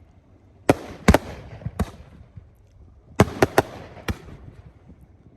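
Aerial firework shells bursting: two sharp bangs about a second in, then a quick cluster of four more around three to four seconds in, each trailing off in a rolling echo.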